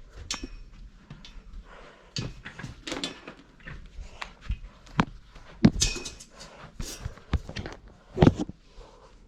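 Irregular knocks, clicks and thuds of things being handled and moved, with the two loudest thuds near six seconds in and shortly before the end.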